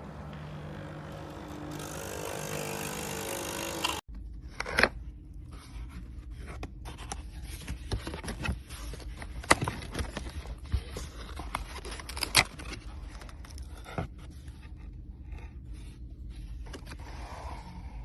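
A steady noisy hum that cuts off suddenly about four seconds in. After it come scattered clicks, knocks and scraping of small hard objects being handled, over a low hum.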